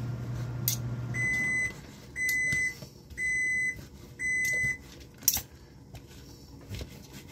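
Microwave oven running with a steady low hum that shuts off just over a second in, then four half-second beeps about a second apart signalling the end of the heating cycle. A single sharp click follows.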